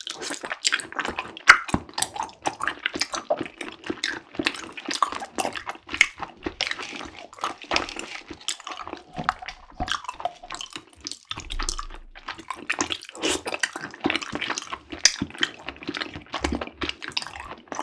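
Mouth sounds of sipping tapioca bubble tea through a straw and chewing the chewy tapioca pearls: a steady run of small wet clicks, smacks and squelches.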